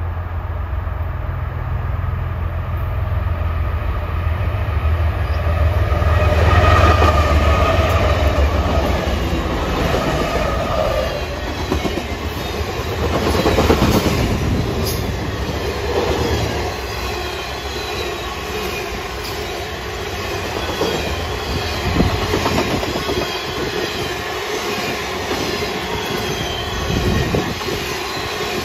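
A westbound Canadian Pacific grain train passes. The lead diesel-electric locomotives (ES44ACs and an SD70U) build to a loud low drone as they come by, about a quarter of the way in. A long string of covered hopper cars follows, their wheels rolling and clattering steadily over the rail.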